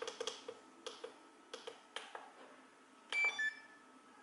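Switches and sticks on a handheld RC transmitter clicking a dozen times or so at an uneven pace, then a short run of electronic beeps at a few different pitches about three seconds in, as the micro quadcopter is made ready to fly.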